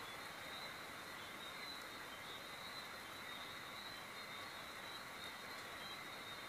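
Faint, steady hiss of rain falling in the background, with a faint high steady tone running through it.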